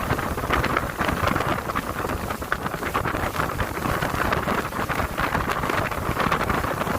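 Wind buffeting the microphone aboard a moving boat: a steady rushing with irregular flutter that eases off near the end.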